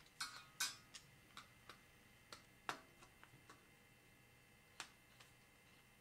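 Irregular faint clicks and taps of small tools and parts being handled inside an opened Mid-2009 MacBook Air during disassembly. Two sharper clicks come in the first second, and one with a short ring comes near the middle.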